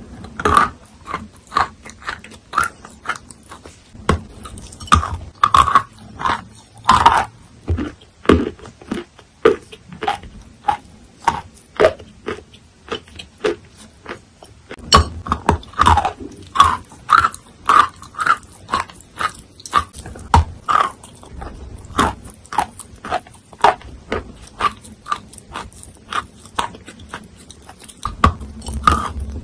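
Soaked chalk being bitten and chewed: a steady run of sharp, wet crunches, one or two a second, with short pauses between bites.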